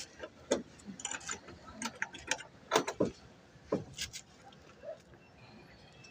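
Irregular light clicks and knocks, about a dozen, spaced unevenly, typical of tools and parts being handled.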